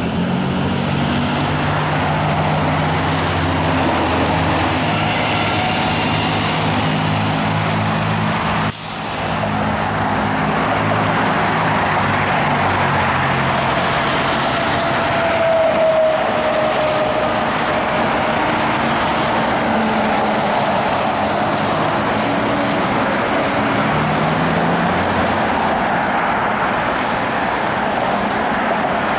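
Steady road traffic at a busy intersection: cars and trucks driving through and idling, with a low diesel engine hum underneath. A brief squeal about halfway through.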